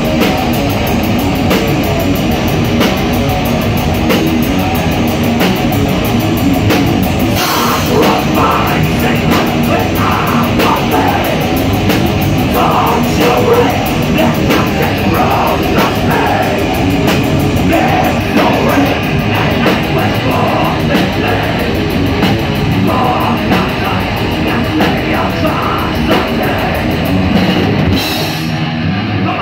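Thrash metal band playing live and loud: distorted electric guitars, bass and drum kit, heard close from the stage.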